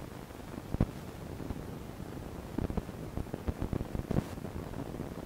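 Steady low hiss and rumble from a poor-quality built-in iPod microphone, with scattered clicks and knocks: one sharp knock about a second in and a run of them in the second half.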